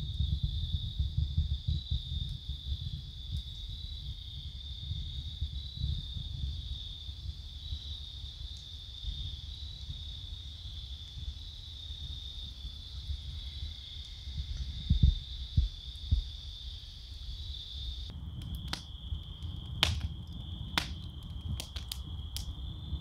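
Steady high-pitched chorus of night insects with an uneven low rumble underneath. In the last few seconds a wood fire in a steel fire-ring crackles with several sharp pops.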